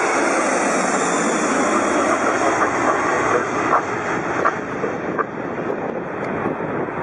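Jet airliner engines running, a steady rushing noise.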